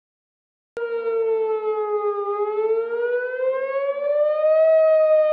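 Outdoor tornado warning siren wailing, the signal of a tornado warning. Its pitch dips slightly and then rises and holds. It starts abruptly just under a second in and cuts off abruptly.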